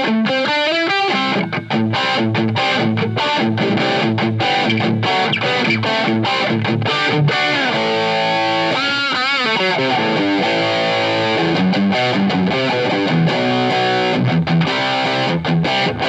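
Distorted electric guitar played through a miked amp, on a Chibson, a cheap Chinese copy of a gold-top Les Paul. It opens with a fast run of notes, has held notes with a wide wavering vibrato about nine seconds in, and ends on low repeated notes.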